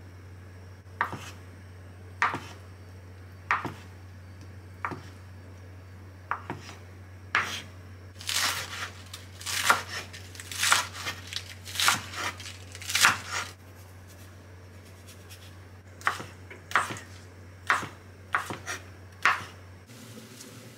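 Kitchen knife cutting on a bamboo cutting board: a few single cuts spaced a second or so apart, then a quicker run of chopping through green vegetables from about eight seconds in, and a handful more chops near the end.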